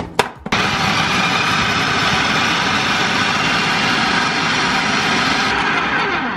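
Food processor motor running with its blade chopping cauliflower florets into rice-sized pieces: a couple of clicks, then the motor starts about half a second in, runs steadily, and spins down near the end.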